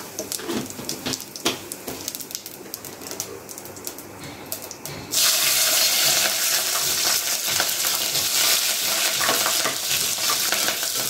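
Cumin and ajwain seeds crackling faintly in hot oil for a tadka. About five seconds in, green chillies go into the oil and it breaks into a loud, steady sizzle, with a spoon stirring in the steel pot.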